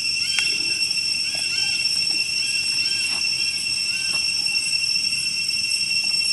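Steady, high-pitched drone of an insect chorus, with a string of short chirps over it through the first four seconds.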